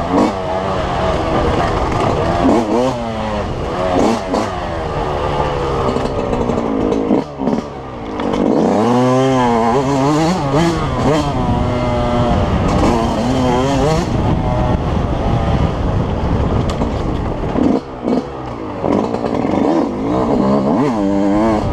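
2005 Yamaha YZ125's 125cc two-stroke single-cylinder engine revving hard under race load, its pitch climbing and falling over and over with throttle changes and gear shifts. The throttle shuts off briefly about seven seconds in and again near eighteen seconds.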